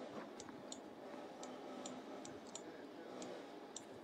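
Faint open-air background with about ten short, high clicks scattered irregularly.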